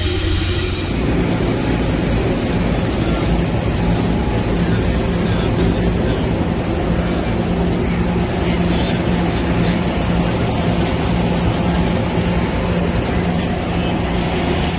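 A steady engine drone with a constant low hum, starting about a second in and running evenly without a break.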